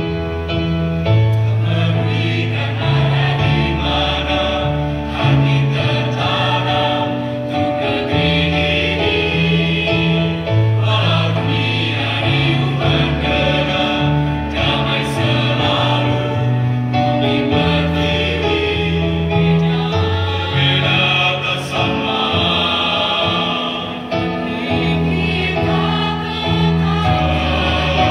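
Mixed choir of men and women singing a church song in parts.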